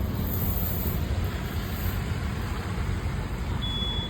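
Steady low rumble of a motor vehicle, with a high electronic beep starting near the end.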